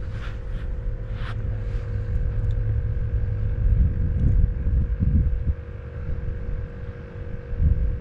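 Gusty wind buffeting the microphone, a loud uneven low rumble that swells and eases, over a faint steady hum. A few brief splashy ticks in the first two seconds.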